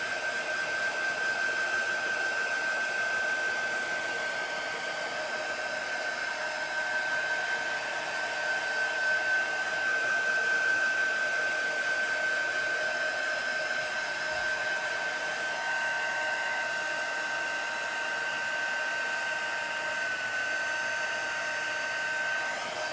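Handheld craft heat gun blowing steadily, drying wet ink on a T-shirt: an even fan hiss with a constant high whine, and a second, lower whine joining about two-thirds of the way through.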